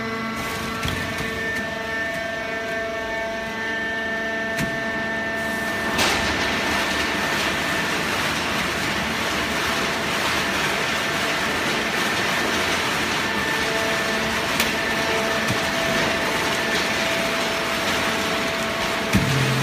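Corrugated cardboard baler machinery running steadily: a hum with several steady tones, joined about six seconds in by a louder, even rushing noise.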